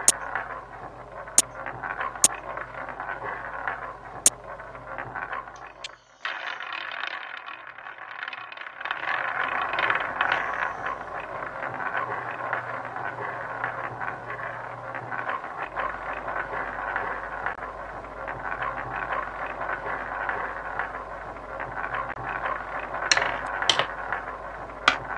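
Online roulette game sound effects: a few sharp clicks in the first seconds as chips are placed, then a long continuous rattling whir of the ball spinning round the wheel, with a few more clicks near the end as the ball settles.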